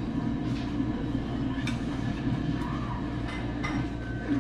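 A steady low rumble of room noise with a few short, sharp clicks of chopsticks and spoons against plates and bowls.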